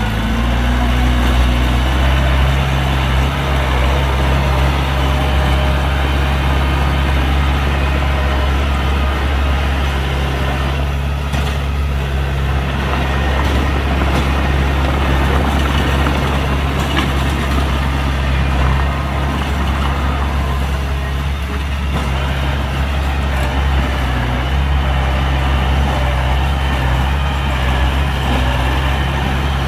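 Heavy diesel engine of earthmoving machinery running steadily at an even speed, with a deep, constant hum and a few faint knocks around the middle.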